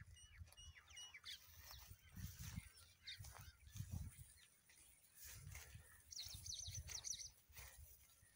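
Small birds calling: a series of short, high chirps in the first second or so, then a quick run of high calls about six to seven seconds in. Low, uneven rumbling on the microphone runs underneath.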